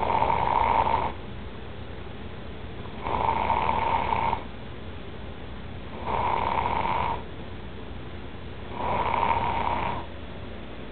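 A young man snoring loudly in deep sleep: four rhythmic snores about three seconds apart, each lasting about a second.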